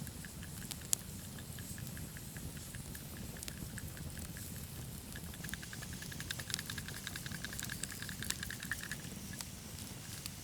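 Seasoning shaken from a spice container onto a raw steak: soft, quick pattering and ticking, busiest from about six to nine seconds in.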